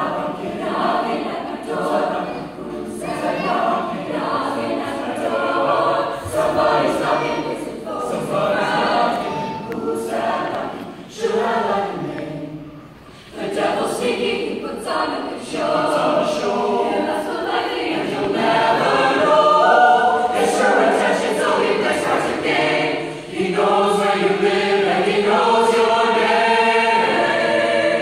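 Mixed-voice high school choir singing, soprano, alto, tenor and bass sections together. The singing drops briefly about twelve seconds in, then comes back fuller and louder through the second half.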